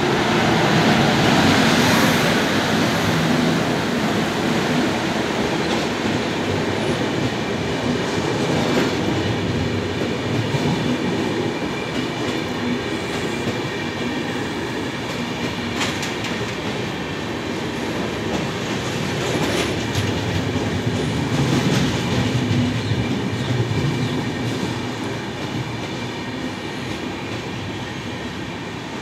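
WAP-7 electric locomotive passing close by, followed by a long rake of passenger coaches rolling past on an arriving express, with wheels clattering over rail joints. It is loudest as the locomotive passes about a second in, then eases and slowly fades as the coaches go by.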